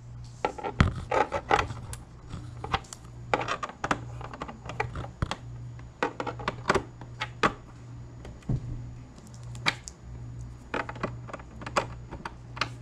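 Irregular clicks, taps and rattles of a USB cable plug being worked into the rear ports of an HP all-in-one PC, with cables being handled, over a steady low hum.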